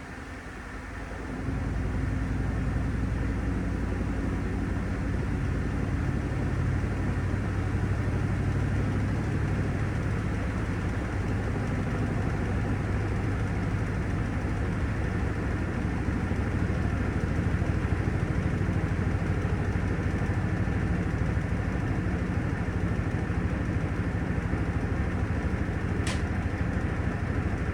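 Panasonic top-loading washing machine running steadily with a low motor hum, starting up again after a brief lull at the start. A single short click sounds near the end.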